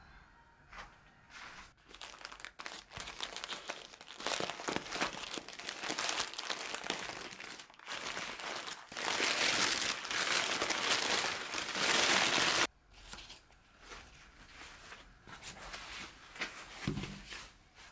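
Hands unwrapping a parcel wrapped in white paper: crinkling and rustling of tissue paper. It builds to a loud, unbroken crinkle past the middle that stops suddenly, then softer rustles and a soft thump near the end.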